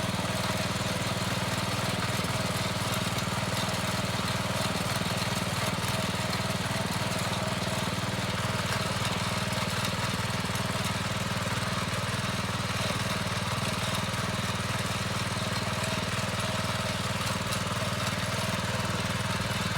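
Small petrol engine of a motor tiller running steadily at an even speed while tilling soil.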